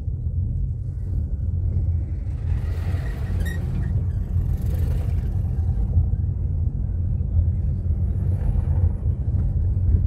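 Car driving: a steady low road and engine rumble, with brief louder stretches of hiss about three and five seconds in.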